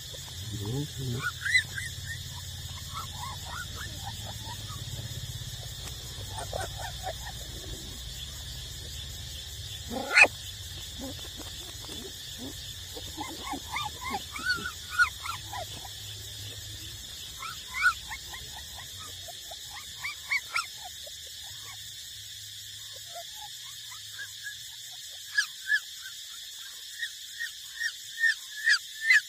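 Puppies whimpering and squeaking in many short, high calls, with a sharper, louder yelp about ten seconds in.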